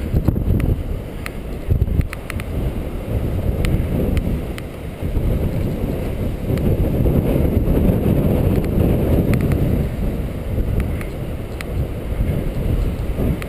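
Wind buffeting the microphone of a bike-mounted camera while riding, a heavy low rumble that swells and eases, with scattered sharp clicks.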